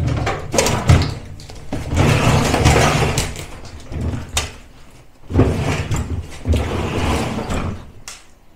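An old enamelled gas cooker being handled and dragged out from the wall: metal knocks and rattles with scraping, in two longer bouts.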